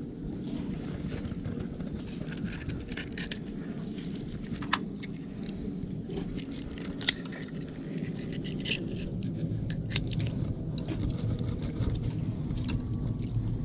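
Scattered small clicks and scrapes of metal pliers working a hook out of a fish's mouth, with two sharper clicks about five and seven seconds in, over a steady low rumble.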